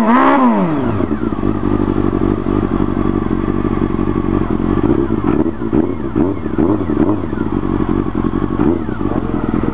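Honda CBR400RR's inline-four engine revved once at the start, its pitch rising and falling back, then idling steadily with a few small throttle blips around the middle, through an aftermarket carbon-fibre silencer.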